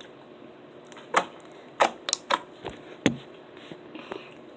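Slime being worked out of a small jar by hand, giving about five short sharp clicks and pops, irregularly spaced, between about one and three seconds in.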